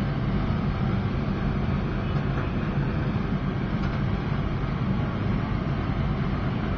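Biomass gasifier furnace firing: a steady low rumble of the burning gas flame.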